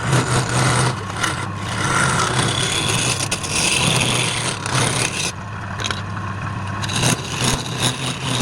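Wood lathe motor running with a steady hum while a turning tool cuts and scrapes the spinning wood, the cutting noise changing as the tool moves.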